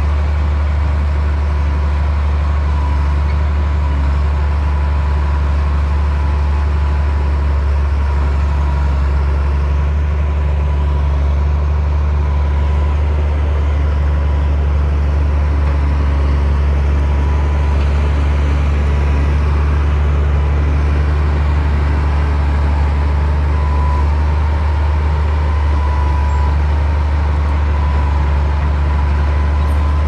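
Komatsu D60P bulldozer's diesel engine running steadily, a deep, even drone with a thin whine above it.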